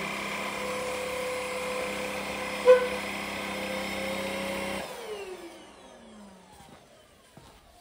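VersLife S7 Plus cordless vacuum running steadily at its lowest power setting, with one sharp click about two and a half seconds in. Just before five seconds it is switched off and its motor whine falls in pitch as it spins down.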